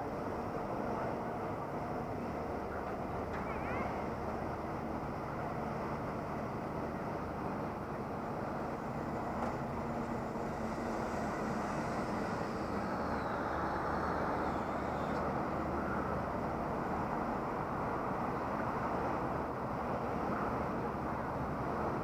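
Steady riding noise picked up by a helmet-mounted action camera on a moving bike: a continuous rush with a low steady hum, and no clear breaks.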